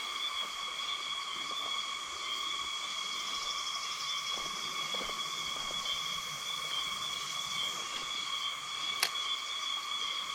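A steady, unbroken insect chorus holding a few high pitches over a faint hiss of background noise, with one sharp click about nine seconds in.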